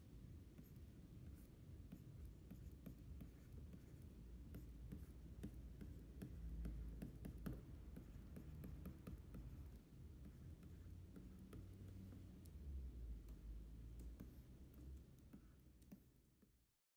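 Plastic stylus nib tapping and scratching on the glass of a pen display as a signature is handwritten: many small irregular clicks, faint over a low rumble, fading out near the end.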